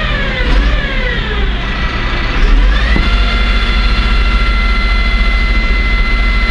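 A vehicle engine running with a steady low rumble, and a whine over it that drops in pitch during the first second, climbs again from about two and a half seconds in, and then holds steady.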